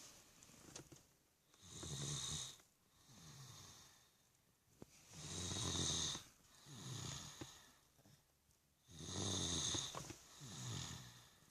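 Snoring in sleep: three loud snores at roughly three-and-a-half-second intervals, each followed by a softer, quieter breath.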